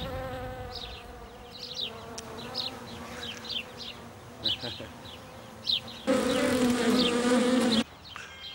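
A bee buzzing in a steady drone that grows louder about six seconds in, then cuts off suddenly near the end, over short high bird chirps.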